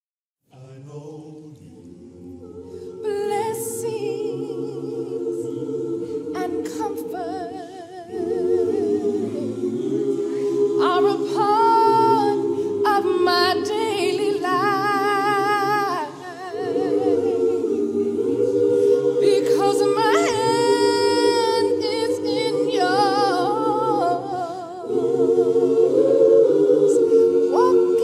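Choir of mixed voices singing a hymn a cappella, in harmony with no instruments. It starts about half a second in, in phrases of several seconds with short breaks between.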